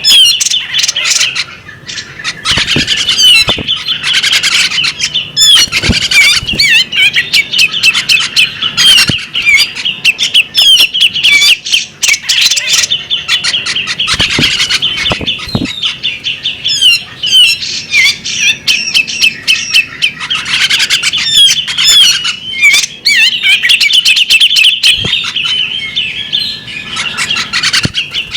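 Female magpie-robin singing and calling in a long, nearly unbroken run of quick chirps, warbles and harsh squawky notes, with a few brief pauses.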